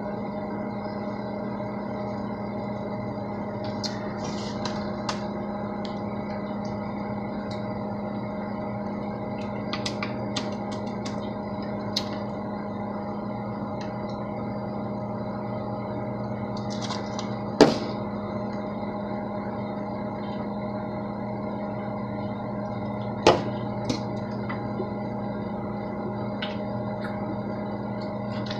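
A steady electrical hum made of several fixed tones, with scattered light clicks and two louder sharp knocks in the second half.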